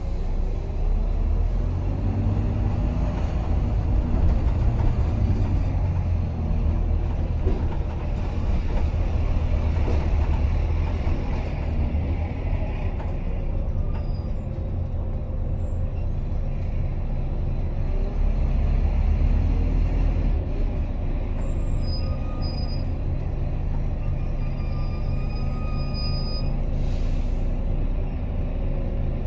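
Volvo B9TL double-decker bus's straight-six diesel engine running as the bus drives along, heard from inside on the upper deck; the engine note swells and glides twice as it pulls. Small squeaks and rattles of the bodywork come through, and a short air brake hiss sounds near the end.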